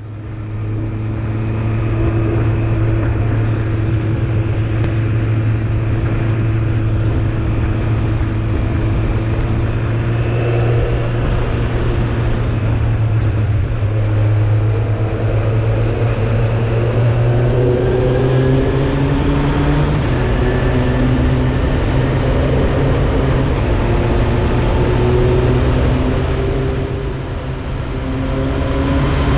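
Suzuki Bandit 1200's inline-four engine running steadily under way, heard from on board the motorcycle with road noise. Its note steps up about twenty seconds in and dips briefly near the end.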